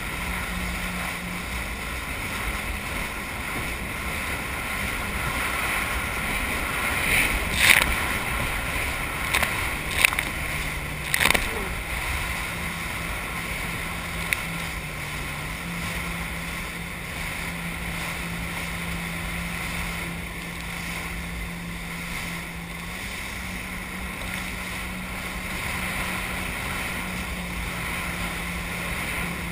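Jet ski engine running under way, a steady drone that drops in pitch about a third of the way through and comes back up a few seconds later, over rushing spray and water. A few sharp splashes stand out near the start of the drop.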